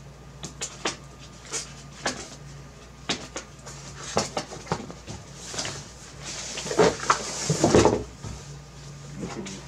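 Cardboard graphics-card box being handled: scattered taps and clicks, then scraping and rustling as the printed outer sleeve is slid off the inner box, loudest about seven to eight seconds in, with a couple of thumps.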